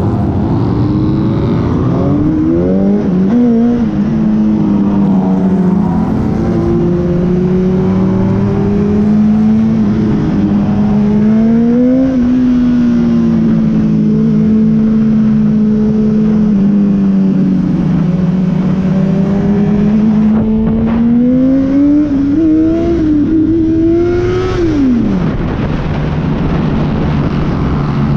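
A sport motorcycle's engine running under way, heard from the rider's seat: the revs climb in several short rising runs in the first few seconds as it shifts up through the gears, then hold a fairly steady cruise with slow rises and dips. Near the end the revs climb again and then drop off sharply as the throttle closes.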